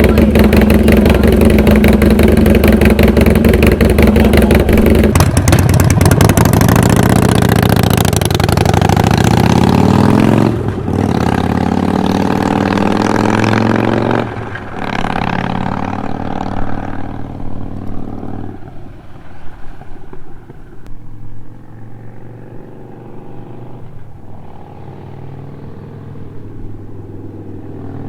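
Harley-Davidson Sportster Roadster's air-cooled V-twin running loud through a Vance & Hines aftermarket exhaust. It is revved and held high for about five seconds, then the revs fall away, with sudden drops around ten and fourteen seconds in. After that it is quieter and duller, with rough uneven pulses.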